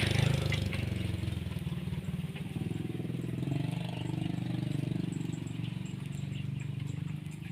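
A small engine running steadily with a fast, even pulse, easing off a little over the first two seconds.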